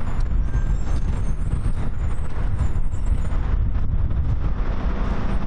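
Wind buffeting the microphone over a steady low rumble.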